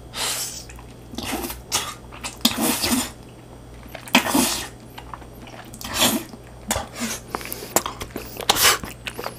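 Wet slurping and sucking as a long strand of cheese-covered rosé tteokbokki is drawn into the mouth, close to a clip-on microphone. It comes as a string of short bursts, about eight or nine, with mouth noises between them.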